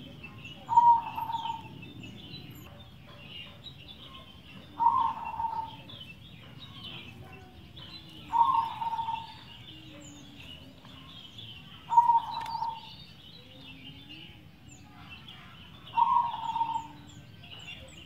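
Zebra dove (perkutut) cooing five times, about one call every four seconds, each call lasting about a second. Continual faint chirping of small birds runs underneath.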